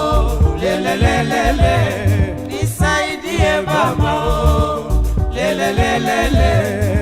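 Swahili rumba band music: a pulsing bass line under a wavering sung or played melody line.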